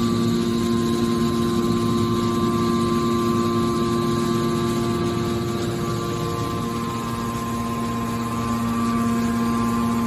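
Hydraulic can baler's electric motor and hydraulic pump running with a steady hum. It eases slightly a little past the middle and picks up again near the end.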